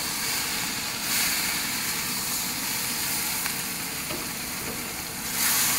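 Stir-fry vegetables and sauce sizzling in a hot wok over a gas flame while a spatula stirs them. The sizzle swells briefly about a second in and again near the end.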